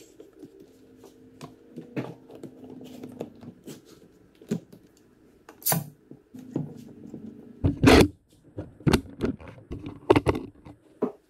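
Bar clamps being set on a glued-up pine base: sharp clicks as the quick-grip clamps are squeezed tight and knocks as the clamp bars and jaws hit the wood. The clicks and knocks come scattered and grow loudest in the last few seconds, over a faint steady hum.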